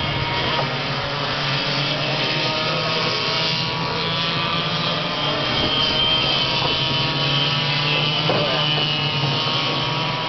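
Several racing go-kart engines running on the track at once: a steady drone with a number of higher engine tones layered over it, shifting in pitch as the karts speed up and slow down.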